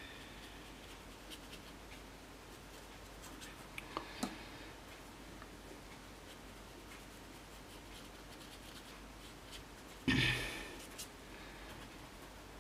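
Faint scratching strokes of a brush working on watercolour paper, with a few light ticks and one brief louder rustle about ten seconds in.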